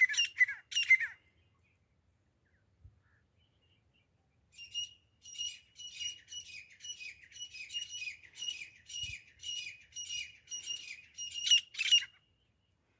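Grey francolin calling: a run of high repeated call notes, about three a second, that stops about a second in. After a pause of a few seconds comes a longer series of the same notes, which ends sharply near the end.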